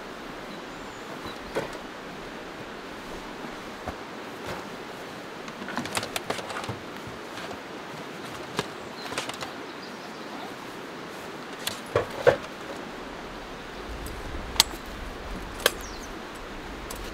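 Camping gear being handled and loaded into a car's boot: rustling of a backpack and scattered knocks and clicks, a few sharp clicks near the end, over the steady rush of a nearby river.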